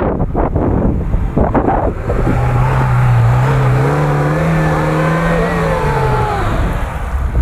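Car engine revving hard for several seconds under load as the off-road vehicle tries to drive out. Its pitch climbs slightly, then drops away near the end. Wind buffets the microphone at the start.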